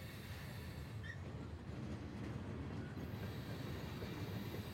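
Freight train of loaded flatcars rolling past, a steady low rumble of steel wheels on the rails.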